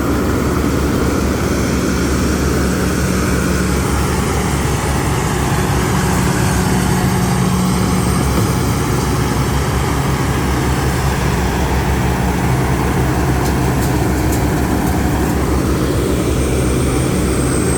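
Diesel engine of a combine harvester running steadily at working speed: a deep, even drone that holds the same pitch throughout.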